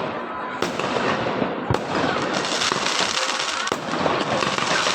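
Many fireworks and firecrackers going off at once: a dense, unbroken crackle with a few sharper bangs standing out from it.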